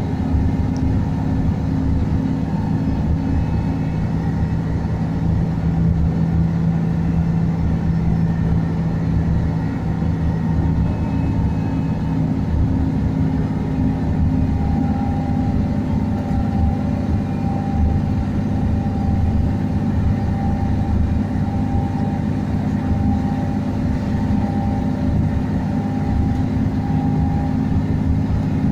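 Scania N113DRB double-decker bus's rear-mounted engine running steadily under way, heard from inside the passenger saloon as a constant low hum with road noise and a faint higher whine.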